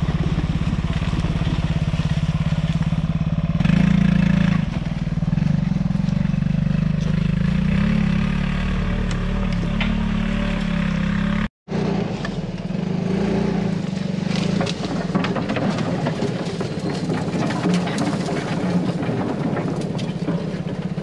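An off-road 4x4's engine runs at low speed as it crawls along a rough track, growing louder a few seconds in. It breaks off for an instant near the middle, then carries on under a busier clatter of small knocks and rattles.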